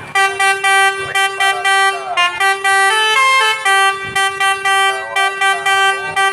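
A Basuri bus's telolet musical horn playing a quick tune. Short horn notes change pitch every few tenths of a second over a steady lower note held beneath them.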